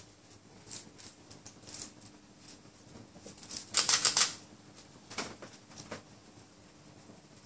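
A baby's hands patting and squishing cake on a plastic high-chair tray: scattered soft taps and crackles, with a louder burst of rapid taps about four seconds in.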